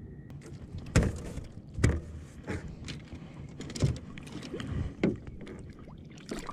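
A striped bass being handled on a boat and released over the side, heard as a series of sharp thumps and splashes about a second apart, five in all, with a smaller one near the end.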